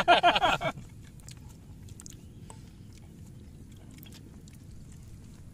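A loud, high-pitched exclamation from a man's voice for about the first half-second. After that comes faint chewing of cooked squid, with a few small mouth clicks over low background noise.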